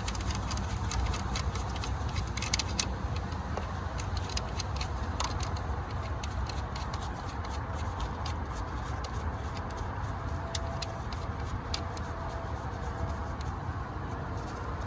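Scattered light clicks and taps of ignition coils and their plug connectors being handled and fitted, over a steady low background hum.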